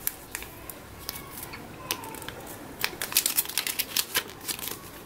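A small folded paper leaflet being unfolded and handled, giving crisp crackles and sharp clicks. They are busiest from about three to four seconds in.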